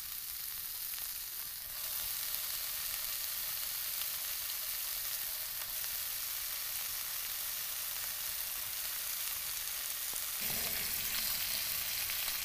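Bacon sizzling in a hot cast iron skillet, a steady frying hiss that gets louder about two seconds in as more strips go into the pan.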